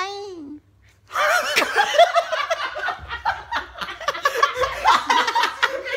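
A group of young men burst out laughing about a second in, a long run of loud laughter. Just before it there is a brief stifled vocal sound and a short pause.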